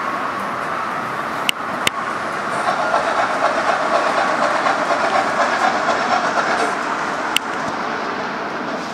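Gauge 1 model of a class 52.80 steam locomotive running along the layout's track, pulling its train. The sound swells into a rhythmic pulsing, about four or five beats a second, as it passes closest, and there are three sharp clicks: two a second and a half in and one near the end.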